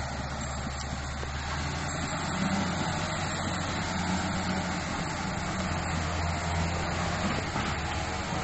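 Bulldozer's diesel engine running steadily, swelling slightly about two and a half seconds in and again a few seconds later.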